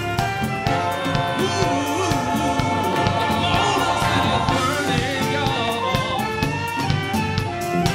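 Live band playing electric guitars, bass and a drum kit, with a steady beat and voices singing over it.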